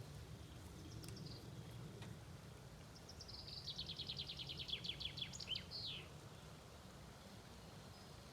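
A small songbird singing one rapid trill of quickly repeated high notes, about nine a second, that starts about three seconds in and ends near six seconds with a couple of falling notes, after a brief high call about a second in. A steady low rumble lies underneath.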